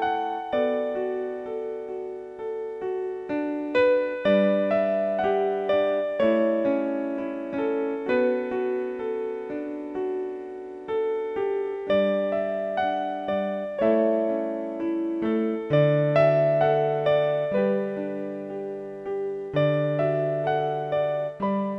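Background music on a piano-like keyboard: notes and chords struck one after another, each fading away, in a calm, even flow.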